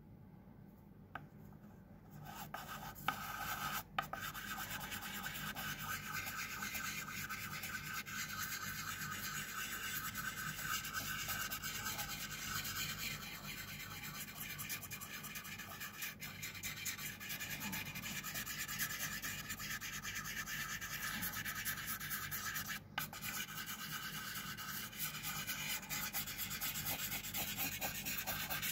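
An orange pastel stick scribbling in loops across paper: continuous scratchy rubbing that starts about two seconds in, with two brief pauses.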